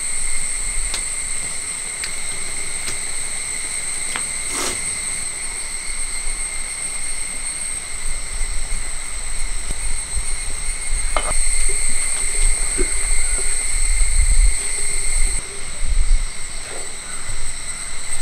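Jackfruit pieces simmering in jaggery syrup in a large metal pan over a wood fire, with a few sharp crackles and a low rumble in the second half, all under a steady high-pitched drone.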